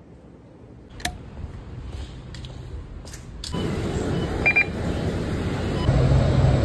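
Interior noise of a moving bus: steady engine hum and road noise that cut in suddenly about three and a half seconds in, with a brief high electronic beep about a second later and the engine hum growing louder near the end. Before that, only a few faint clicks.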